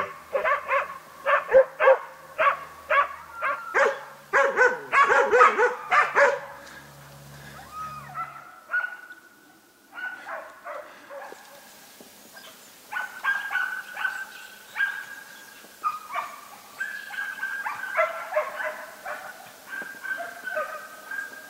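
West Siberian Laika puppy barking at a wild boar it is holding at bay. A run of loud, rapid barks for about the first six seconds gives way to fainter, higher-pitched yelping barks at irregular intervals.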